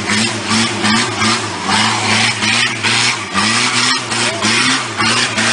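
An off-road 4x4's engine revving in quick, even surges, about two or three a second, as it climbs a steep rutted dirt track. A rushing noise rises with each surge.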